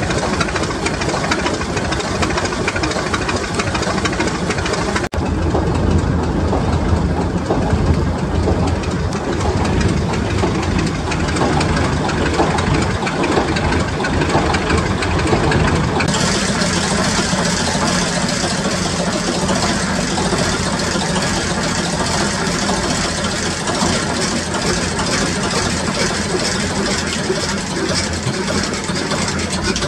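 Six-cylinder Baudouin slow-running marine diesel engine running steadily, with a continuous knocking beat. From about halfway through it is heard close up in the engine room, where it sounds sharper and brighter.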